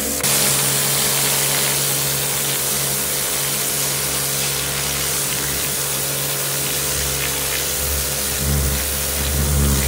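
Kärcher K7 pressure washer running: its motor and pump start suddenly just after the beginning and settle into a steady hum under the hiss of the water jet, with the low rumble growing louder near the end.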